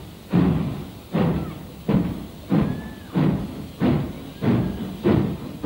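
Steam locomotive exhaust chuffing in a steady, slowly quickening beat of about nine heavy chuffs as the engine gets under way.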